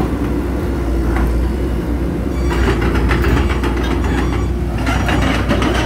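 Komatsu PC78US excavator's diesel engine idling with a steady low hum, with a rapid clattering rattle over it from about two and a half seconds in.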